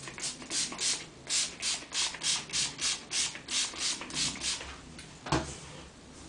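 Pump spray bottle of wig spray spritzed over a dozen times in quick succession, about three short hissing sprays a second, then a single knock near the end.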